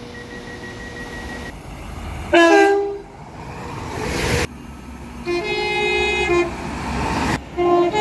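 British diesel multiple-unit train horns sounding short two-tone blasts. The loudest blast comes about two seconds in, followed by the rising rush of a train passing close. Further two-note blasts follow near the middle and the end.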